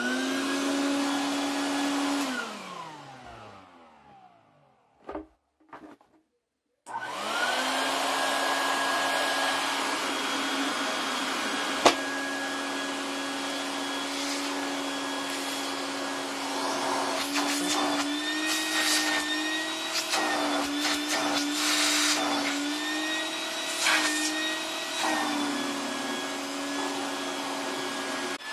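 Stinger wet/dry shop vac motor switched on, shut off after about two seconds and winding down with a falling whine, blipping briefly twice, then started again about seven seconds in and spinning up to a steady run. In the second half its pitch dips and wavers, with a few clicks, as the suction load changes.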